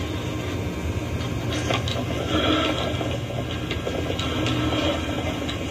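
Steady low hum and hiss from an old videotape's sound track, with a few scattered clicks and rustles.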